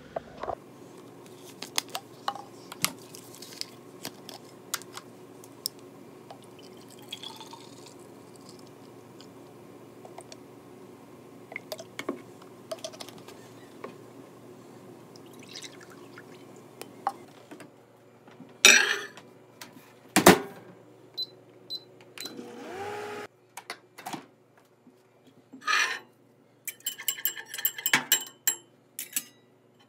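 Kitchen sounds of making up a baby's formula bottle: liquid being handled and poured over a steady hum that stops about two-thirds of the way through. Then come two loud knocks, and near the end a knife clinks repeatedly against a glass measuring cup as the milk is stirred.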